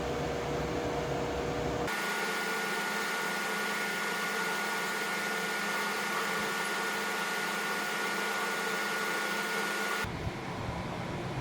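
Electric drill motor running steadily with a constant whine while drilling out the rivets of a motorcycle clutch housing. The whine jumps higher abruptly about two seconds in and changes again near the end.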